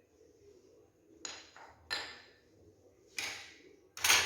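A spoon clinking against a bowl four times, sharp ringing taps, the last one the loudest, as spices are added to a marinade.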